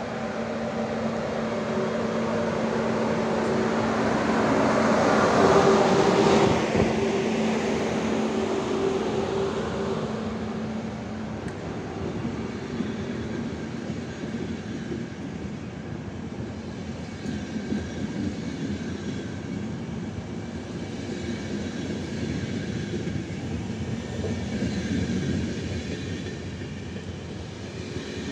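ČD class 151 electric locomotive hauling a passenger train past at the platform. Its steady hum is loudest about six seconds in as it goes by, then the coaches follow with an even rolling of wheels on rails.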